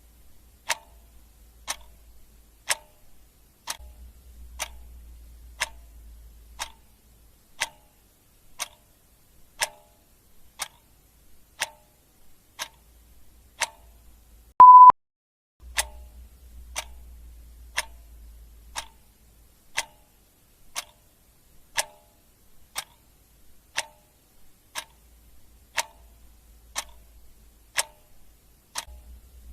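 Clock ticking steadily, about one tick a second. A single short, high beep about halfway through is the loudest sound.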